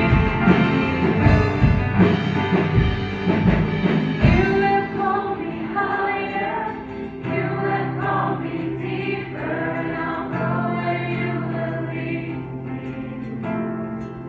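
Live worship band with many voices singing together, a woman leading; drums play until about four seconds in, then drop out, leaving the singing over held guitar and keyboard chords, gradually getting quieter.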